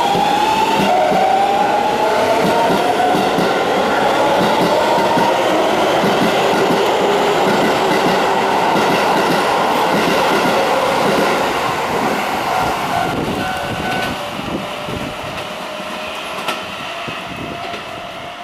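Keikyu N1000 series electric train with Siemens VVVF inverters, the 'Doremifa' train, accelerating away from the platform. Its motor whine climbs in pitch over the first few seconds, then holds as the wheels clatter over the rail joints, fading in the last several seconds as the cars draw away.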